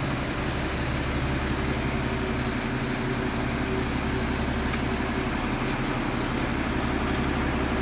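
An engine running steadily at a constant speed: an even, low droning hum with no revving.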